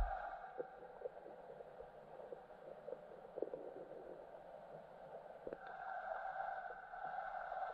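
Underwater lake ambience heard through the water: a faint, steady hum that swells about two-thirds of the way in, with scattered faint clicks.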